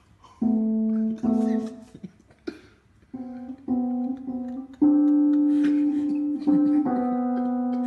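Electronic keyboard played by a cat stepping on its keys: irregular held notes, single and in clusters, each sustained steadily until released, with short gaps between them. They start about half a second in, and the loudest note comes near five seconds in.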